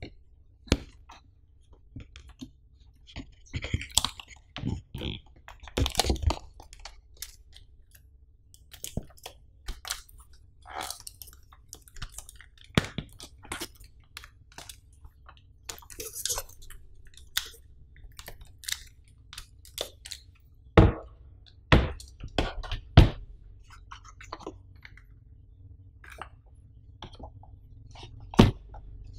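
Hands handling a MacBook Air and its cardboard packaging: scattered taps, clicks and rustles of fingers on the aluminium case and the box as the laptop is lifted out, then a few sharp knocks about two-thirds through and another near the end as the hand works at the accessory tray.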